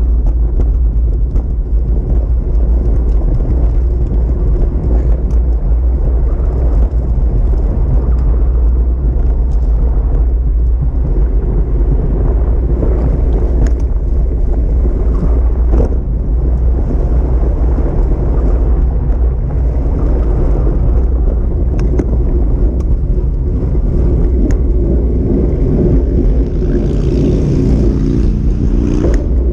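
Wind buffeting and road vibration on a handlebar-mounted camera's microphone while a bicycle is ridden at speed: a loud, steady low rumble, with a few faint clicks from bumps in the path.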